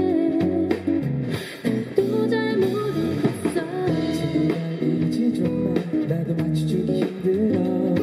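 Live pop song: a woman sings into a microphone over a Nord Piano 4 stage piano and an acoustic guitar.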